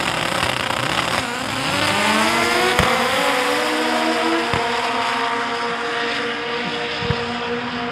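Two drag cars launching off the line and accelerating down the strip. Their engine notes climb steadily in pitch over the first couple of seconds, then hold high as the cars run away down the track.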